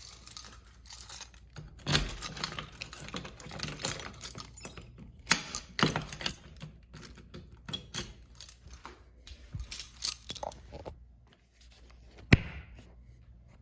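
A bunch of keys jangling and clicking irregularly, with one sharp click near the end.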